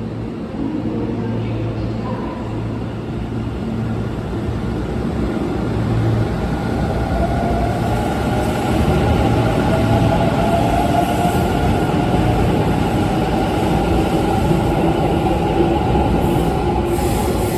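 Hanshin 5500 series electric train running, getting louder over the first ten seconds, with motor whine rising slightly in pitch and the rumble of wheels on rail.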